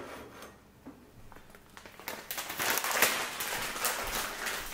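Crinkling and rustling as dried kelp is handled and taken from its packaging, starting about two seconds in with many fine crackles.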